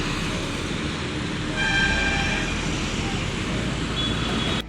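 Steady road traffic noise, with a vehicle horn sounding for about a second, about one and a half seconds in.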